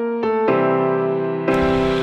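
Background music: piano-like keyboard chords that change about every half second. A hissing noise layer comes in about one and a half seconds in.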